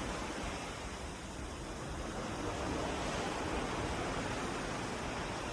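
Steady, even rush of the open sea and wind, heard from a cruise ship at sea.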